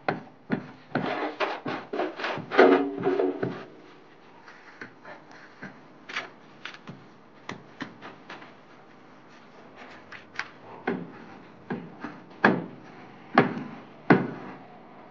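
Plastering work on a wet gypsum screed: scraping and knocking of a straightedge and hands against the wall. The strokes come in a quick flurry for the first few seconds, thin out to scattered light clicks, then return as a handful of sharper knocks near the end.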